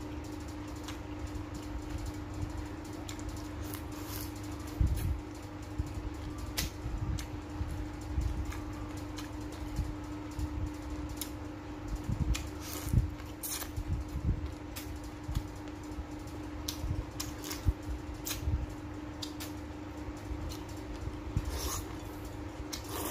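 Close-up eating sounds from a man chewing cooked shrimp and greens by hand: irregular mouth clicks and smacks over a steady low hum.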